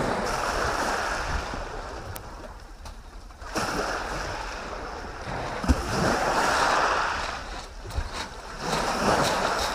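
Small waves breaking and washing up a shingle beach, the surf swelling and falling back about every two to three seconds, with wind rumbling on the microphone. A sharp tap sounds about halfway through.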